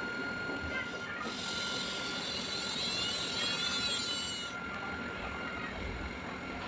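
Small DC motor running with a steady high whine. From about a second in to about four and a half seconds, a louder high-pitched hissing buzz with a wavering pitch joins it.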